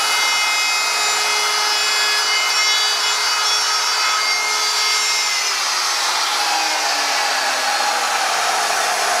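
Handheld fixed-base router running at full speed, its bit cutting a decorative profile along the edge of a wooden sign. About halfway through it is switched off, and its whine falls steadily in pitch as the motor winds down.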